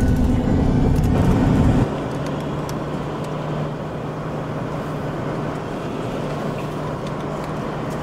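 Driving noise heard from inside a 4WD's cabin: a loud rumble of engine and road for about two seconds, then it drops abruptly to quieter, even road noise with a steady hum as the vehicle drives along a town street.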